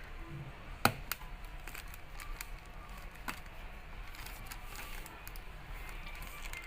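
Scattered small clicks and taps of tools and fingers on a laptop's plastic case during disassembly, with one sharp click about a second in.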